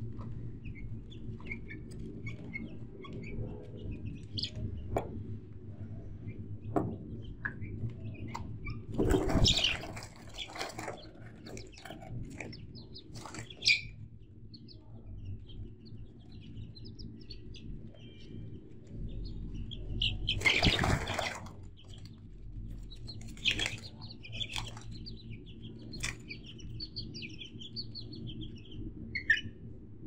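Small birds chirping now and then over a low steady hum, with two louder rustling rushes, about nine seconds in and again about twenty-one seconds in.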